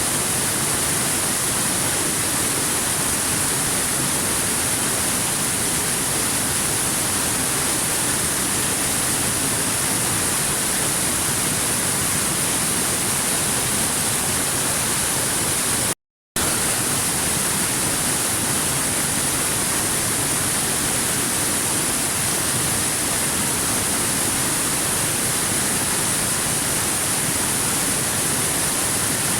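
Waterfall rushing: a steady, hissy roar of falling water with no change in level. About sixteen seconds in it cuts out to silence for a fraction of a second and then resumes.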